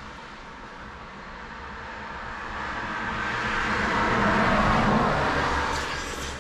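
A road vehicle passing by: its noise swells to a peak about four to five seconds in, then fades away.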